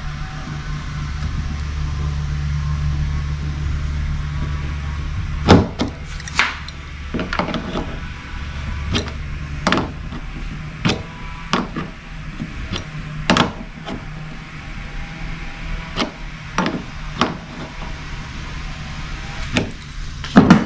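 Sharp plastic clicks and knocks, about one a second, as a small Yak Power LED navigation light is turned by hand and threaded into a NuCanoe kayak's plastic hull. A steady low hum runs under the first few seconds and then fades.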